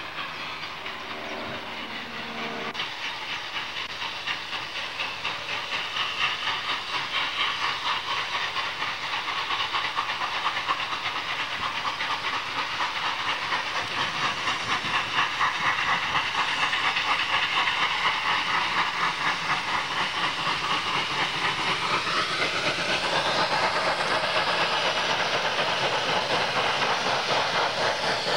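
Norfolk and Western steam locomotives working hard upgrade. A chord-like steam whistle blows for about the first three seconds, then rapid exhaust chuffs and steam hiss grow steadily louder as the engines approach.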